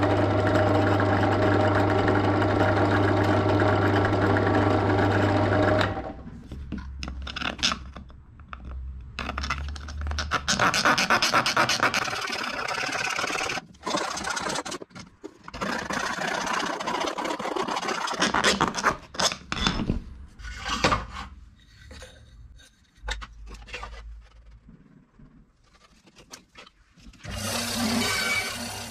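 Woodworking: a steady machine hum with an even whine cuts off suddenly about six seconds in. Irregular scraping and rubbing on wood follows, in uneven strokes and pauses, and a brief steady noise comes back near the end.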